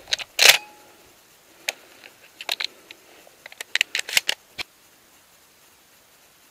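Sharp metallic clicks and knocks of a shotgun being handled and reloaded. There are about a dozen over four seconds, the loudest about half a second in and a quick cluster near the end.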